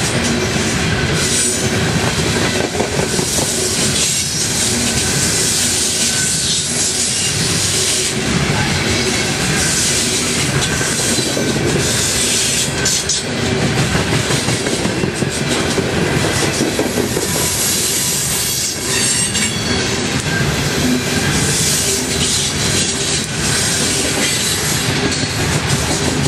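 Long string of freight coal hopper cars rolling past close by: a steady rumble of steel wheels on rail, with clacking over the rail joints and occasional wheel squeal.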